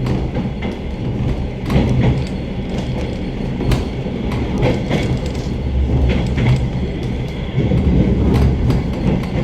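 Suburban passenger train running, heard from inside a carriage: a steady low rumble with irregular clicks and knocks of the wheels over rail joints and points.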